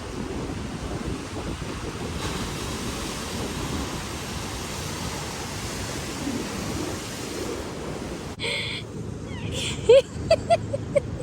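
Surf washing, with wind buffeting the microphone, steady for about eight seconds. Then the sound changes abruptly to a few short high sounds and a run of sharp clicks, the loudest about ten seconds in.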